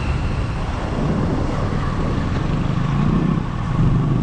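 A road vehicle on the move: steady road and wind noise with a low engine hum, growing a little louder about three seconds in.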